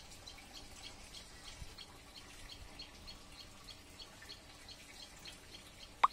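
Faint outdoor ambience with a rapid, regular series of short high chirps, about four a second. Just before the end, a brief loud rising sweep.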